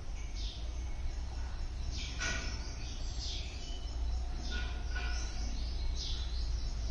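Small birds chirping in short, high, downward-sliding chirps, one about every second, over a steady low background rumble.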